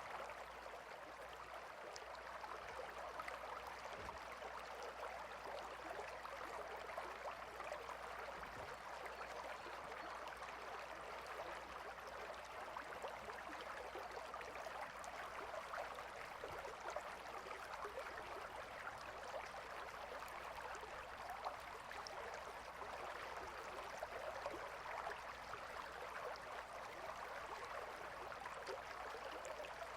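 A gentle river flowing, a soft, steady rush of water.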